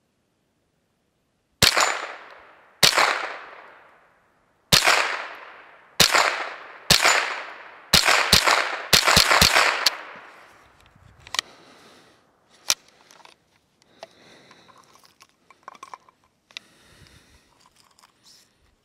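Thompson/Center TCR 22 semi-automatic .22 LR rifle firing about ten shots, each followed by a short echo. The shots come about a second apart at first, then in quick succession. Fainter metallic clicks and handling of the rifle follow once the firing stops.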